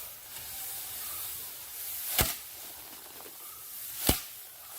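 Two sharp whacks about two seconds apart over a steady high hiss.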